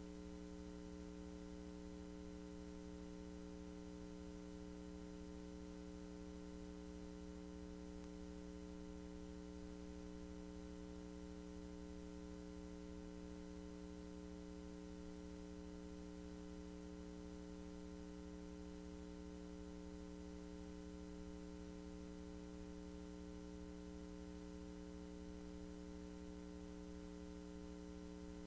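Steady electrical hum with several overtones over faint hiss, unchanging throughout.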